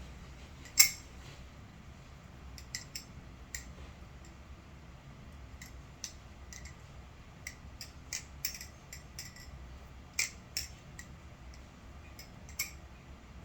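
NRB SLight titanium butterfly knife (balisong) being flipped: scattered sharp metallic clicks and light clinks as the handles and blade knock together, the loudest about a second in.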